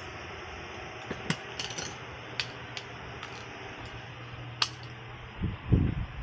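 Scattered light clicks and clinks of hand tools being handled, about seven over a few seconds, over a steady low hum. Near the end a loud low rumbling noise comes in.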